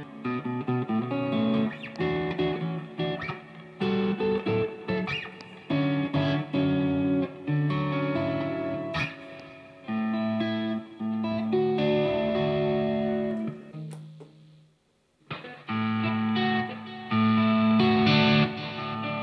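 Electric guitar played through an amplifier and speaker cabinet on a clean tone, picking chords and single notes that ring out, with a short stop about fifteen seconds in.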